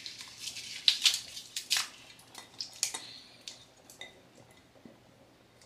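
Chopped tomatoes, green onions and parsley being scraped off a plate into a pot of curry: a quick run of utensil scrapes and clinks against the plate, thinning out after about three seconds into a few faint clicks.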